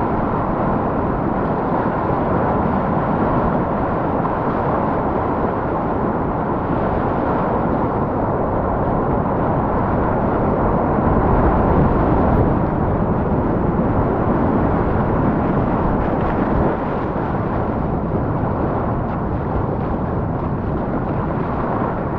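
Whitewater rapids rushing, a loud steady roar of water that swells a little about halfway through.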